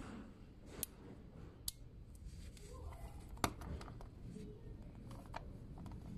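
Faint, scattered metallic clicks and taps from a combination laptop cable lock being handled and set down with its coiled steel cable, the sharpest click about three and a half seconds in.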